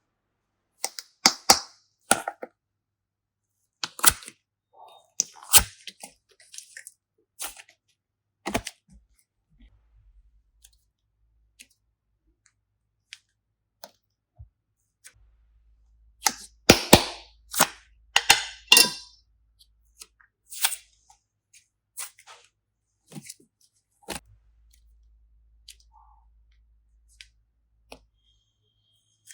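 Slime being handled and pressed, giving bursts of sharp popping and crackling clicks with quiet gaps between. The densest, loudest cluster comes about two-thirds of the way through.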